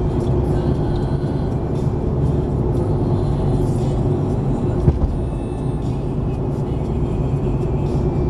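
Steady engine and road noise of a car driving at cruising speed, heard from inside the cabin, with one short knock about five seconds in.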